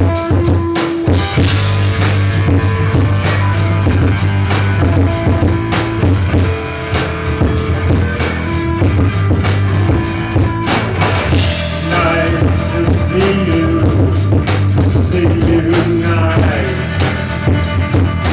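Live rock band playing: drum kit keeping a steady beat under electric guitar and bass guitar.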